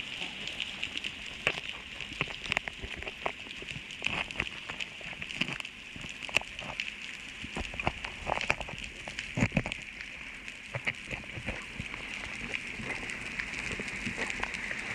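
Underwater sound picked up through a camera housing: a steady hiss with many irregular sharp clicks and crackles and a few dull knocks.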